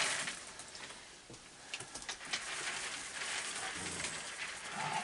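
Dry dog kibble pouring from a plastic bucket into a wooden tray, trailing off in the first half-second, then a steady rain hiss with a few scattered clicks.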